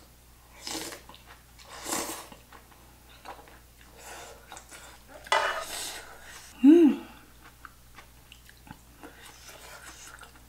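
A person eating stew with chopsticks: several short slurps about one, two and five and a half seconds in, with soft chewing and light clicks of chopsticks against a bowl between them. A brief hummed 'mm' of enjoyment comes near seven seconds and is the loudest sound.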